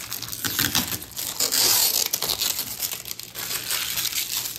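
Clear plastic shrink wrap being peeled off a graphics card's shroud, crinkling and crackling, loudest about halfway through.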